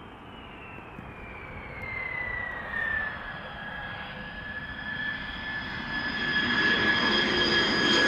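B-2 Spirit stealth bomber's jet engines on final approach to landing: a high whine that falls in pitch over the first few seconds and then holds steady, over jet noise that grows steadily louder.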